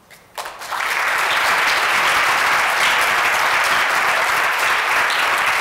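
Audience applauding, starting about half a second in and holding steady and loud.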